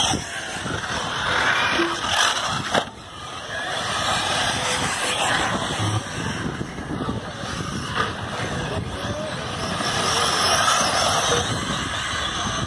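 Radio-controlled off-road cars running on a dirt track: a steady, noisy mix of motors and tyres on dirt, with a short drop in loudness about three seconds in.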